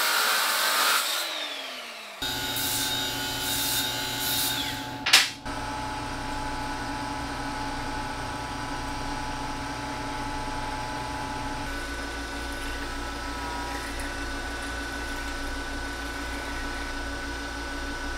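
An angle grinder cutting metal, then spinning down with falling pitch about two seconds in. After that a combination lathe/mill motor runs steadily, with one sharp knock around five seconds in.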